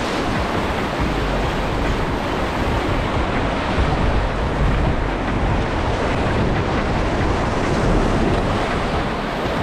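Whitewater rapids rushing loudly and steadily, heard close at water level, with wind buffeting the microphone.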